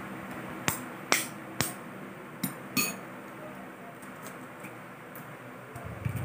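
A metal spoon tapping and cracking the shell of a boiled balut duck egg: five sharp clicks in the first three seconds, then fainter ticks as shell pieces are picked off by hand.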